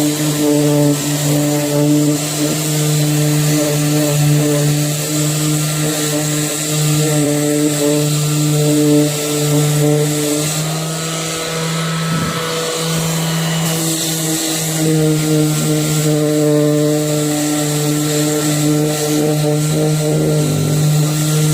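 TOTAL 20 V cordless orbital sander running steadily: a loud motor hum over a rasping sanding hiss, with a brief wavering in pitch about twelve seconds in.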